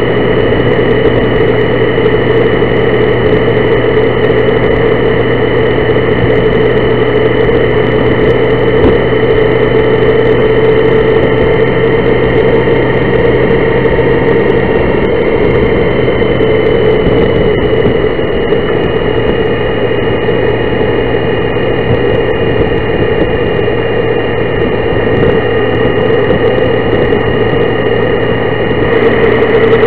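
Honda Gold Wing motorcycle cruising at a steady speed: a steady engine drone under a thick haze of wind and road noise.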